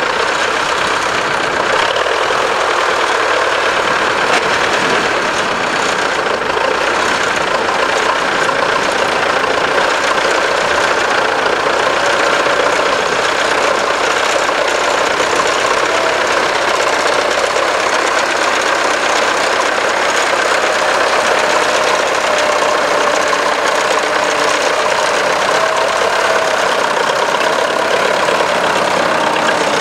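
Belarus T-40 tractor's air-cooled diesel engine running steadily and loud, working under ploughing load.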